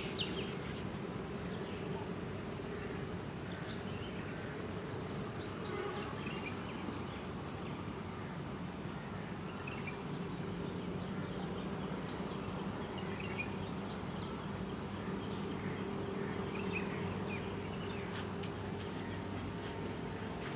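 Electric motor of a chaff cutter (toka) running with a steady hum, with birds chirping now and then and a few clicks near the end.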